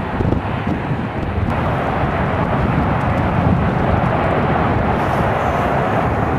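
Twin-engine jet airliner engines at takeoff power during the takeoff roll: a loud, steady rumble with a broad rush above it. The sound changes abruptly about a second and a half in, where one departing airliner gives way to another.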